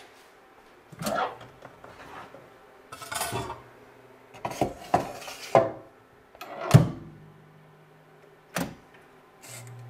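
Scattered knocks and clatters of a metal tray and pan being handled and slid into a countertop air fryer oven, its door and dials worked, the loudest clack about seven seconds in. Near the end a low steady hum comes on as the air fryer starts running.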